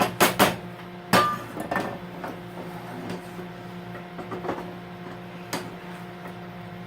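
Utensil knocking and clattering against a pan while pasta, cream sauce and steak strips are stirred together: three sharp clacks in the first second or so, then lighter scattered taps, over a steady low hum.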